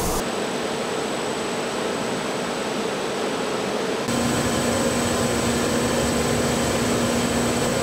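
Steady mechanical drone of a steel-sheet printing line running, with a faint high whine. About four seconds in the sound changes abruptly to a slightly louder drone with a lower steady hum.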